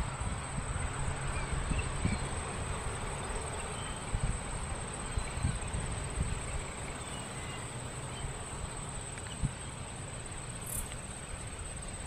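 Outdoor background noise: an uneven low rumble with a faint hiss, and a steady high-pitched tone over it.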